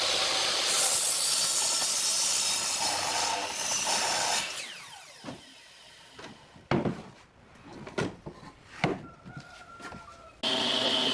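A handheld electric power tool working wood runs for about four seconds, then winds down. A few sharp knocks of wood being handled follow, and near the end a power tool starts up again with a steady whine.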